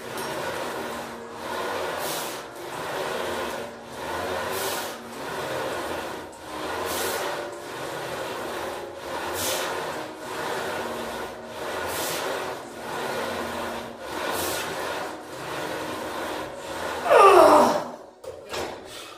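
A man breathing hard and rhythmically through a set of barbell squats, each breath swelling and fading about once a second with a sharper exhale about every two and a half seconds. Near the end comes a loud, short sound that slides down in pitch.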